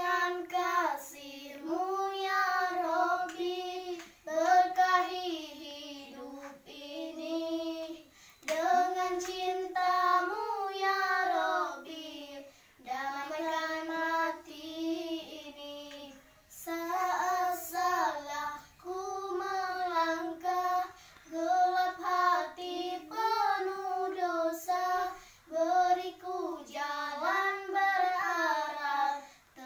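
Two children, a girl and a boy, singing together without accompaniment, in phrases of a few seconds broken by short pauses.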